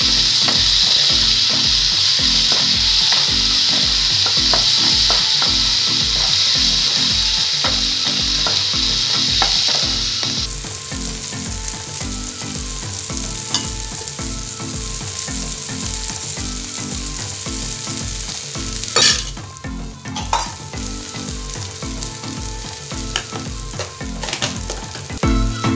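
Onions and tomatoes sizzling in hot oil in a nonstick pan as they are stirred. The sizzle is loud for about the first ten seconds, then drops abruptly to a quieter frying with scattered clicks and one sharp knock a little later.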